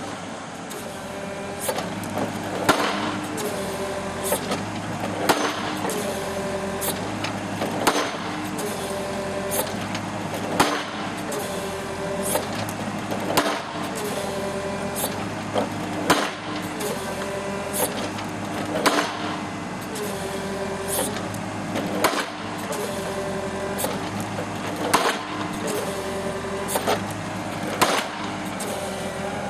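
King Hitter drop-hammer pile driver on a Cat 312DL excavator driving a pole: the 700 kg ram strikes the pile cap about every two and a half seconds, with lighter clacks between blows. Under it the excavator's engine and hydraulics run, their note stepping up and down with each lift of the ram.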